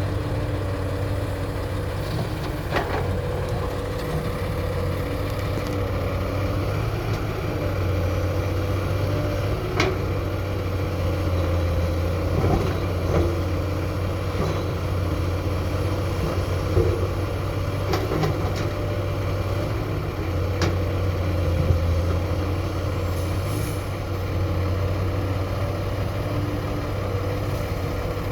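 Excavator's diesel engine running steadily under load, with a steady whine over it and a few sharp knocks scattered through.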